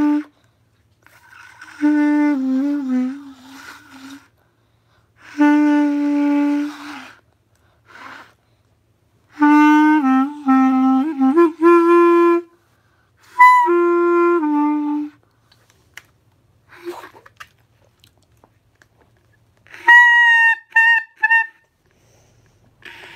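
Clarinet played in short phrases of held low notes, some wavering in pitch, with pauses between them. Near the end come a few short, high notes.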